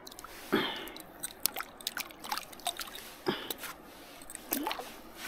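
A small trout flopping in shallow water at the bank: a string of small splashes and drips, with three bigger splashes spread through, the first about half a second in.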